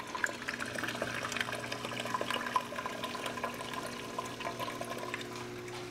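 Water running and splashing in a reef aquarium sump, with many small splashing clicks over a steady low electrical hum.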